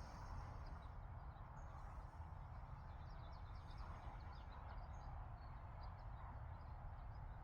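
Quiet background ambience: a steady low rumble with faint birds chirping in quick, short notes through the second half.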